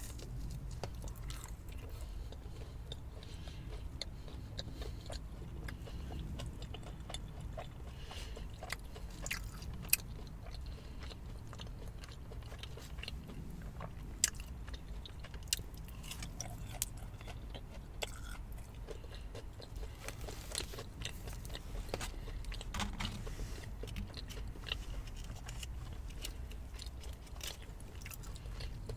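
Close-up chewing and biting of Burger King chicken nuggets dipped in sweet and sour sauce, wet mouth sounds with a few sharp clicks, over a steady low hum.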